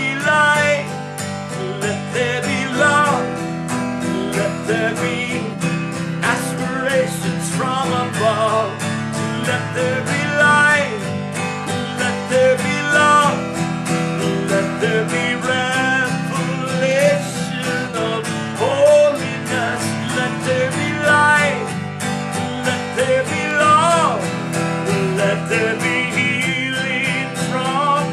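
Slow worship music: strummed acoustic guitar over a sustained chord bed, with a melody line that bends and wavers in pitch above it.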